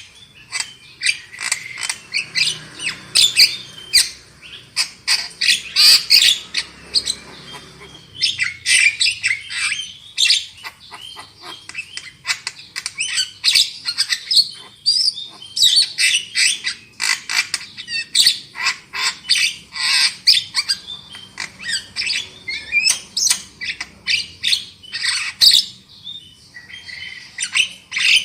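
Javan myna calling: a fast, dense run of short, sharp notes, with a couple of brief pauses.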